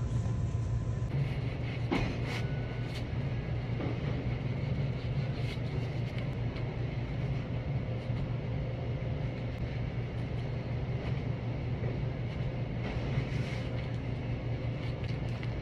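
Steady low hum of bakery kitchen machinery, with a few faint light knocks and rubs as a chocolate sponge cake layer is handled on a foil cake board.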